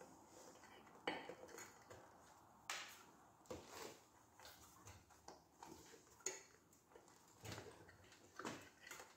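Faint, scattered clicks and clinks of metal tools and parts being handled during hand assembly work, a handful of short sharp knocks spread irregularly over several seconds.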